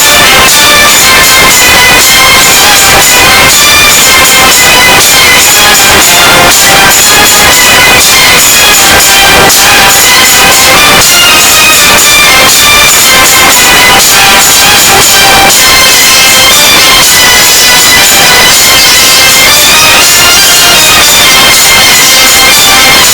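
Loud dramatic soundtrack music: a high melody moving over steady percussion.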